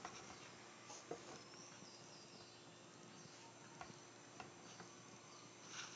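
Near silence: room tone with a few faint, scattered clicks and a slightly louder rustle at the very end.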